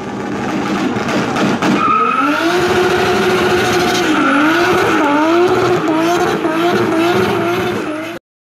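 A performance car driven hard, with the engine at high revs and tyres squealing. The pitch rises and falls again and again with the throttle, and the sound cuts off abruptly near the end.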